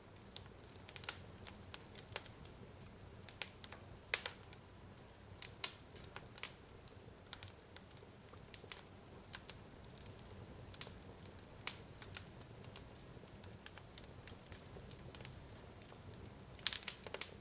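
Fire crackling in a fireplace: irregular sharp pops and snaps over a faint steady low rumble, with a quick run of several pops near the end.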